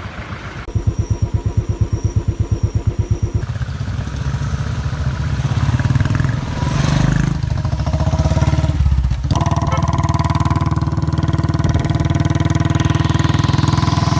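Royal Enfield single-cylinder motorcycle engine with its slow, even thump at low revs, then running harder and steadier. There is a short break in the sound about nine seconds in, like a gear change, before it settles into steady running.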